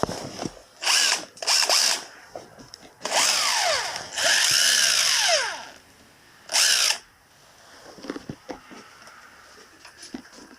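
Electric power drill run in several short bursts, the longest about two seconds in the middle; the motor's pitch rises as it spins up and falls as it winds down between bursts.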